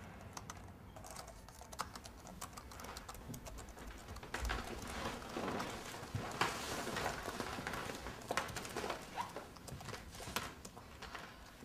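Typing on a laptop keyboard: quick, irregular key clicks that grow busier and louder about four seconds in.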